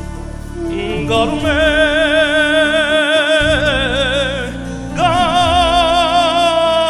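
Male singer holding two long notes with wide vibrato, with a brief break between them, over live Armenian folk ensemble accompaniment.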